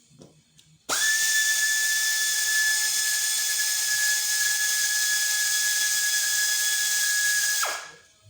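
Compressed air hissing loudly and steadily with a high whistle, starting suddenly about a second in and cutting off near the end with a brief falling tone.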